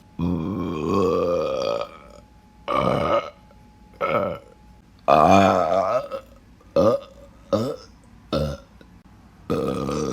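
A person burping again and again, about eight burps in all: a long one of nearly two seconds at the start, then shorter ones, the loudest about five seconds in, a quick run of three short burps around seven to eight seconds, and another long one starting near the end.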